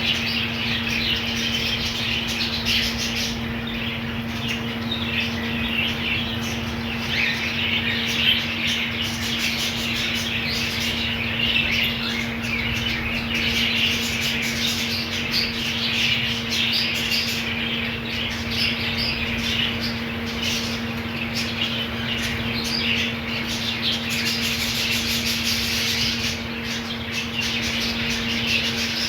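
A colony of budgies chattering, chirping and squawking continuously, many birds at once, over a steady low hum.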